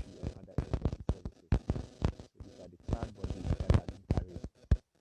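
People's voices talking, choppy and broken up, with frequent short thumps and knocks close to the microphone.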